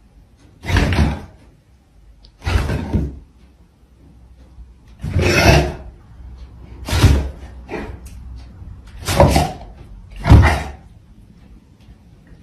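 A dog and a cat play-fighting on a rug: six loud, separate thuds, one every one to two seconds.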